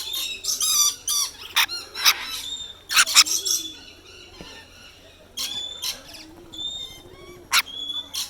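Parrots squawking and screeching, many loud harsh calls overlapping in quick clusters, with a brief lull in the middle.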